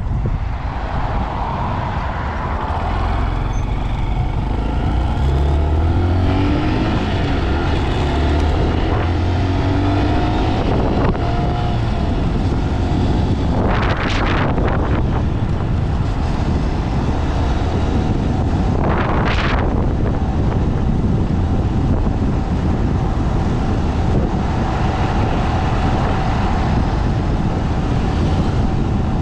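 Honda Monkey motorcycle's single-cylinder engine running under way, rising in pitch as it accelerates during the first several seconds, then holding a steady note at cruise. Heavy wind rumble on the microphone runs underneath, with two brief whooshes about two-thirds of the way through.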